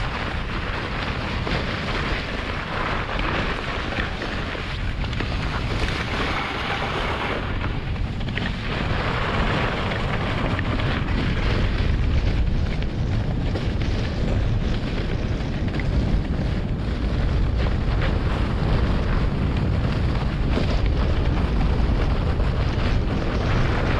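German Luge 115 toboggan sliding down a snow run: a steady hiss and scrape of the runners on the snow, with heavy wind rumble on the camera microphone, getting a little louder about halfway through.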